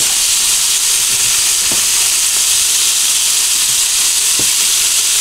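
Pieces of peacock bass fillet sizzling steadily in hot olive oil in a frying pan, with a couple of faint pops.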